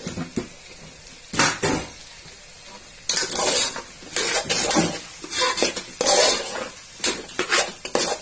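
Metal spoon stirring and scraping against the side and bottom of a metal pot, in quick irregular strokes that come thick from about a second in. Under the strokes, a sizzle of peas, tomato and spices frying in oil.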